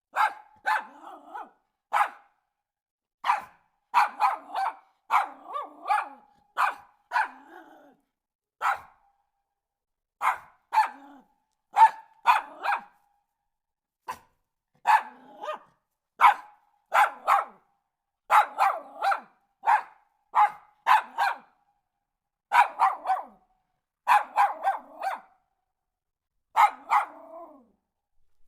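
Dog barking repeatedly in quick runs of two to four sharp barks, with short pauses between runs.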